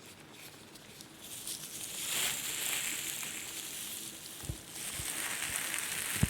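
Ear-cleaning ASMR: a pick scratching and rubbing close against a microphone, a crackly, sizzling hiss that swells about two seconds in. A few soft low thumps come near the end.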